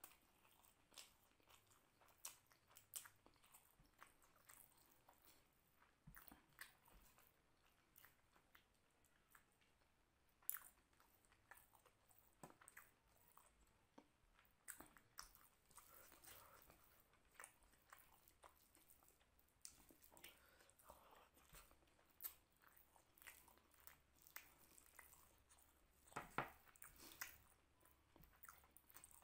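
Faint, close-miked chewing and wet mouth smacks of someone eating rice and mutton curry by hand, with many short, sharp clicks scattered throughout and a louder pair about ten seconds in and near the end.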